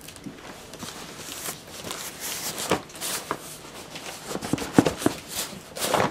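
A large cardboard shipping box being tipped and turned by hand: scuffs of cardboard and a series of irregular knocks, with a small loose box rattling inside. The loudest knock comes a little under five seconds in.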